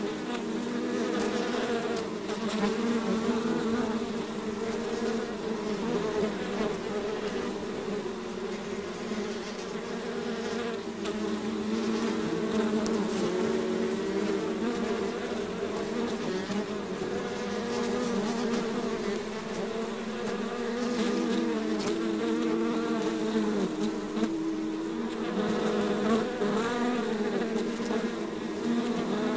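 A swarm of bees buzzing steadily, many overlapping hums that waver slightly in pitch, with no break.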